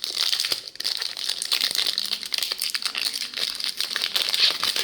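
Foil booster-pack wrapper crinkling and crackling steadily as it is handled by hand.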